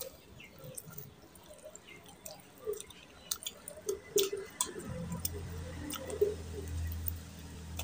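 Close-miked wet eating sounds: chewing, lip smacks and sharp wet clicks as mutton curry and rice are eaten by hand and meat is bitten off the bone. A steady low hum comes in about five seconds in.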